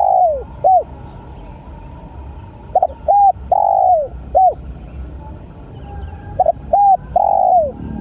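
Spotted dove cooing: song phrases repeated about every three and a half seconds. Each phrase is a few short rounded coos around a longer, louder coo that falls in pitch at its end.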